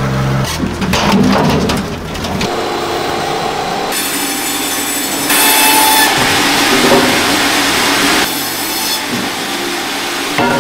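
Timber being sawn, heard in several stretches that change abruptly, the loudest in the middle, with a quick run of knocks near the start.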